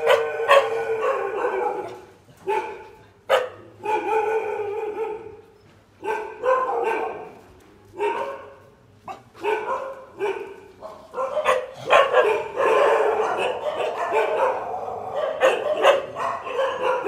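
Dogs barking, with drawn-out pitched calls of about a second each coming in groups with short pauses, running together more densely near the end.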